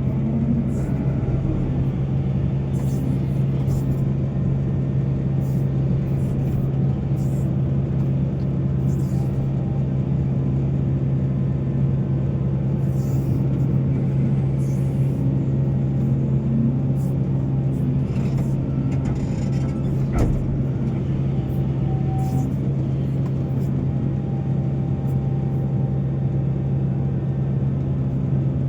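Heavy diesel engine of mining machinery running steadily with a constant low drone, with a single sharp knock about twenty seconds in.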